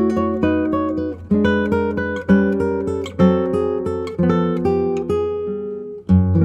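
Background music on plucked acoustic guitar, a new note or chord about once a second, each ringing out and fading.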